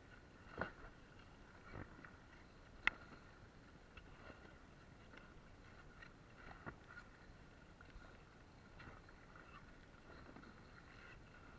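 Faint, irregular splashes and knocks of a long pole being paddled through seawater beside an inflatable float, with one sharper click about three seconds in.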